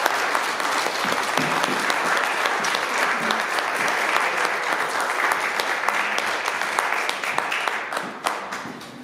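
Audience applauding: dense, steady clapping that thins and dies away about eight seconds in.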